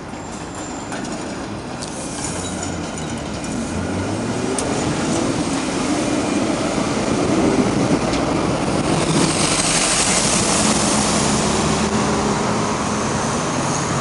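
Articulated electric street tram passing close by on its rails, its running and wheel noise building steadily as it draws near and staying loud as it goes past.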